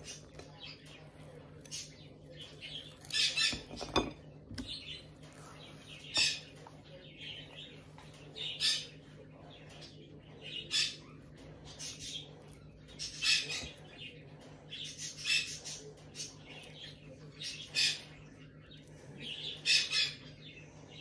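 Table knife scraping on toast and working through a banana: short scratchy strokes about every two seconds as peanut butter is spread and banana slices are cut onto the toast, with a single knock about four seconds in, over a steady low hum.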